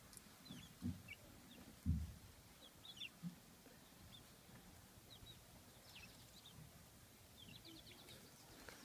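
Five-week-old chicks cheeping softly in short, scattered high chirps, with a few dull low thumps, the loudest about two seconds in.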